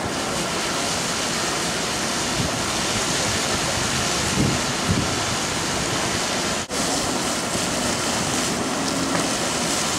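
Steady wind rushing over the microphone on an open ship's deck, with a few low buffets a little before halfway and a brief dropout about two-thirds of the way through.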